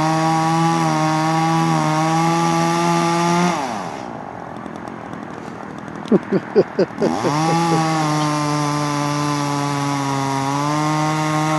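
Chainsaw engine running at high revs. About three and a half seconds in it drops to idle for a few seconds, then revs back up and holds high.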